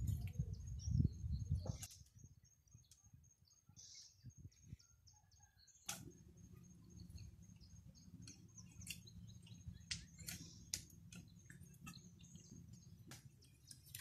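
Low bumping and rustling of bamboo being handled for the first two seconds. After that, scattered light clicks and taps as rattan strips are woven around a round bamboo frame, with faint bird chirps.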